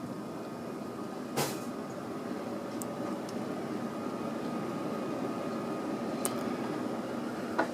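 Casablanca Lady Delta ceiling fan running on high speed: a steady rush of air from the blades with a faint steady tone, growing slightly louder as it comes up to speed. Two brief clicks, one about a second and a half in and one near the end.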